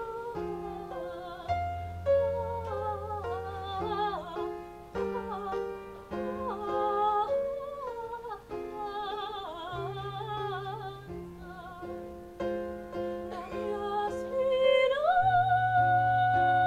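Music: a woman's voice singing in an operatic style with vibrato over a plucked-string accompaniment with held bass notes, ending on a long held high note.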